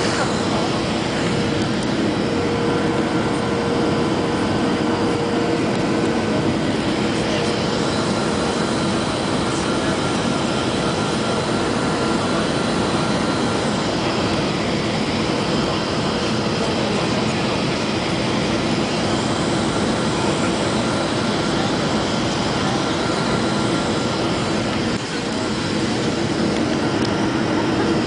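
Steady engine and airflow noise heard inside the cabin of a Boeing 737-300 on its landing approach, from its CFM56-3 turbofans, with a few steady engine tones above it. The level dips briefly about 25 seconds in.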